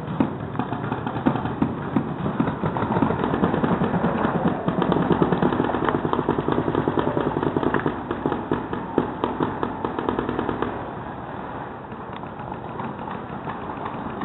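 Paintball markers firing rapid, overlapping volleys of shots, thickest through the middle and easing off about eleven seconds in.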